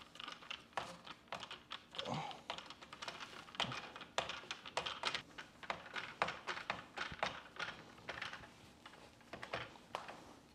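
Screwdriver backing out Phillips screws from the aluminium base of a Feedback Sports Ultralight bike repair stand: an irregular run of small, sharp metal clicks and ticks, several a second, as the tool turns and the hardware rattles.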